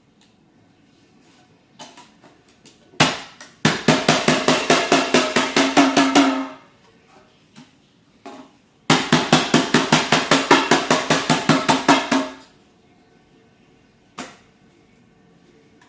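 Acer laptop making a strange, loud, rapid rattling clatter, about five clicks a second, in two bursts of about three seconds each, with a few single clicks before, between and after.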